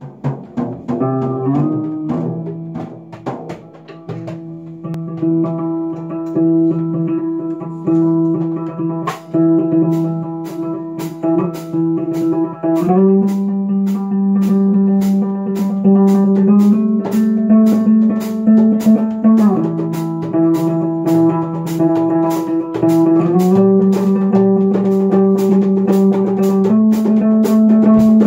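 Electric guitar and percussion jamming: long held guitar notes that shift to a new pitch every few seconds, over a steady beat of drum and cymbal hits.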